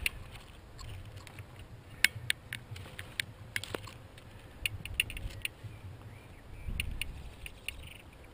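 Scattered sharp clicks and light crackles of long wooden binding rods knocking and rubbing together as a bundle is handled and carried, over a low rumble.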